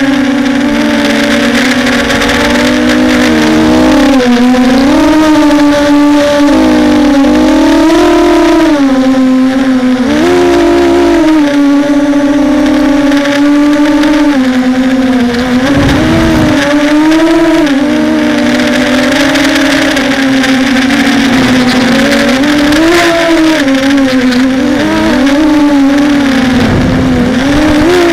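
Multirotor hexacopter's six motors and propellers droning steadily, the pitch wavering up and down as the throttle changes to fight gusty wind. Wind buffets the microphone with a low rumble about halfway through and again near the end.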